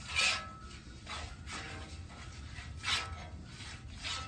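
Metal spatula sweeping across the oiled steel top of a Blackstone griddle, spreading a thin coat of oil in several scraping strokes.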